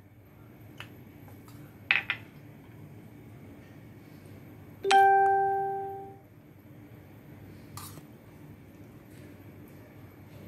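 Metal dishes clinking while food is served: a short clatter about two seconds in, then a dish set down with a clear ringing tone that fades over about a second, near the middle.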